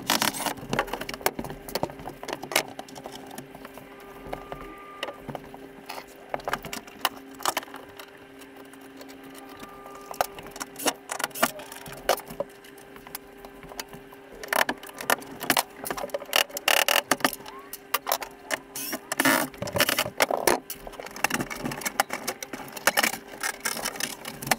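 Scattered knocks, taps and clatter of tools and wooden panelling being handled during interior demolition of a camper trailer, busiest in the second half, over a steady low hum.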